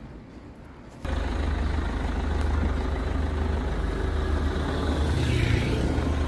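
Loud, steady low rumble of a heavy vehicle's engine, cutting in abruptly about a second in.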